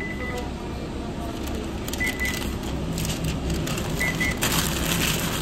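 Paper sandwich wrapper crinkling as it is folded around a burger, loudest near the end. Kitchen equipment beeps in short high pairs twice over a steady low hum of machinery.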